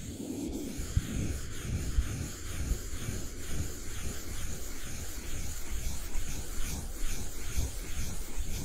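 ASMR brushing: a thin brush stroked repeatedly over the microphone, giving a continuous soft scratchy rubbing, with a few low bumps of the brush against the mic.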